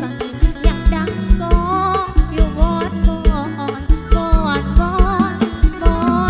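Live mor lam sing band music: a woman's voice singing a melody into a microphone over a steady drum-kit beat, bass and electric instruments, played through a large stage PA.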